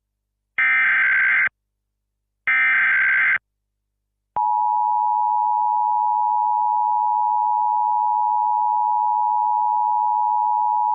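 Emergency Alert System SAME header: the last two of three one-second blasts of harsh digital data tones. A couple of seconds later the steady two-tone EAS attention signal starts, about four seconds in, and holds, marking the start of an emergency alert broadcast.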